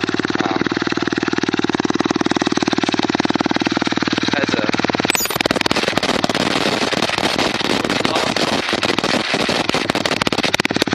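Kawasaki KLX110's small single-cylinder four-stroke engine idling steadily just after starting. About five seconds in, the sound turns rougher and noisier as the microphone comes right up to its Pro Ti-4 aftermarket exhaust and catches the exhaust pulses.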